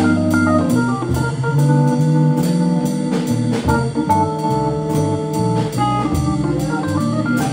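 Live jazz trio of electric keyboard, electric bass guitar and drum kit. The keyboard holds sustained chords over a moving bass line while the drums keep time on the cymbals.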